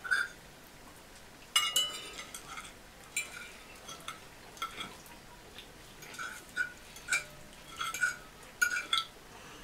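Metal forks clinking and scraping on plates as two people cut up and eat their food: many short clinks at irregular intervals.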